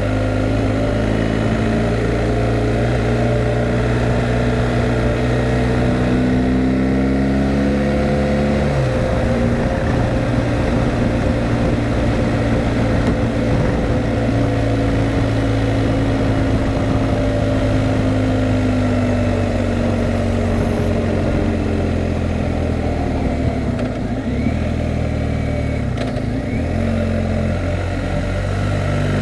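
Motorcycle engine under way, its pitch rising and falling with the throttle. The revs drop sharply about nine seconds in and climb again near the end.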